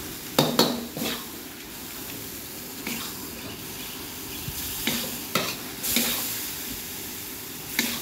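Spatula scraping and knocking against a wok as beef, bean sprouts and noodles are tossed, over a steady frying sizzle. The strokes come irregularly, a few seconds apart, with the loudest near the start and about six seconds in.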